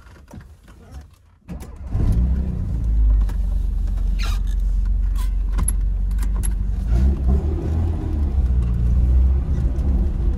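A Tofaş car's engine with a loud aftermarket Konya-style exhaust starts about a second and a half in and keeps running, heard from inside the cabin. Its pitch wavers up and down in the second half as the engine is revved, with a few light clicks in between.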